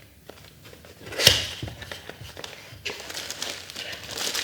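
Retail box being opened by hand: a sharp knock or snap about a second in, then rustling and scraping of cardboard and packaging from about three seconds in.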